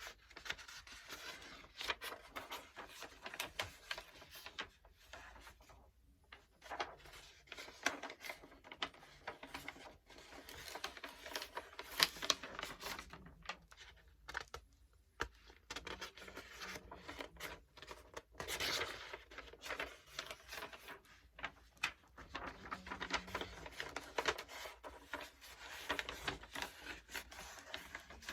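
Book pages being turned and flipped: a continuous run of papery rustles and swishes, broken by short sharp crackles and scrapes.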